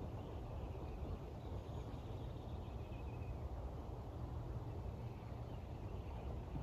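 Quiet outdoor ambience: a steady low rumble, with faint distant bird chirps about one and a half to three and a half seconds in.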